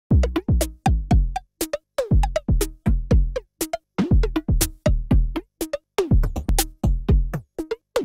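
Electronic drum-machine beat: deep kicks that drop in pitch, with sharp snappy hits and short pitched tom-like blips between them, cutting off abruptly at the end.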